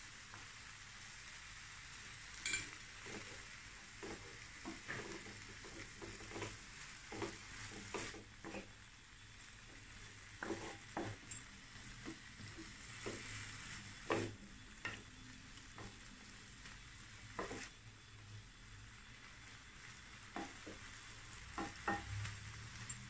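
A wooden spatula stirs and scrapes a shrimp, chicken and shredded cabbage filling being stir-fried in a frying pan, knocking against the pan at irregular moments over a steady faint sizzle.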